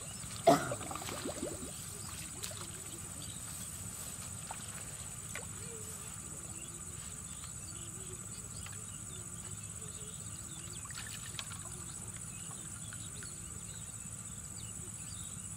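Quiet outdoor background with faint, distant voices and a steady, thin high whine. A short, loud voice-like cry about half a second in.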